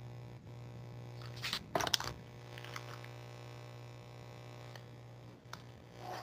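A steady low hum, broken about one and a half to two seconds in by a short burst of rustling and sharp clicks, with a few faint ticks later on.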